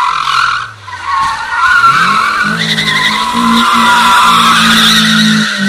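FSO Polonez 1.4 16V drifting in tight circles: its tyres squeal with a wavering pitch, breaking off briefly about a second in, over the engine held at steady high revs.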